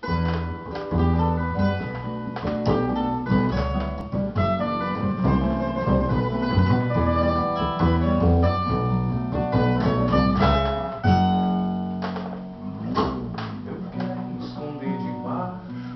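Double bass and acoustic guitars playing together in a Latin rhythm: many quick guitar notes over a sustained low bass line.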